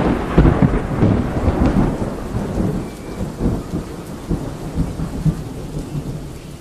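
A roll of thunder that is loudest in the first second or two and fades away, over the hiss of heavy rain.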